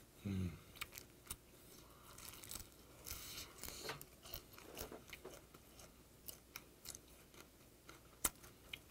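Close-up chewing of a crisp, microwaved whiteleg shrimp head: faint wet chewing with many small crunches and clicks. A brief low hum from the eater comes at the very start.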